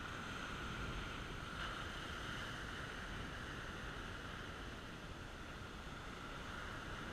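Small waves washing up on a sand beach, with wind buffeting the microphone; a steady noisy wash throughout, with a faint steady high hum underneath.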